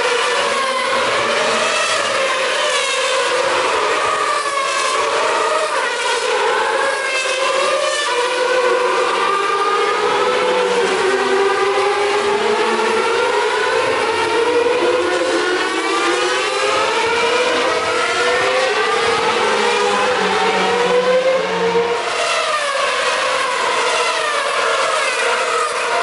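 Several 2013 Formula 1 cars with 2.4-litre naturally aspirated V8 engines racing past one after another. Their overlapping high-pitched engine notes rise and fall continuously as the cars pass and change gear.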